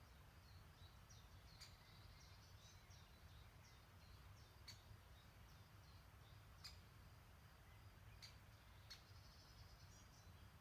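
Faint songbird chirping: quick high twittering notes with about five sharper call notes spread through, over a steady low rumble.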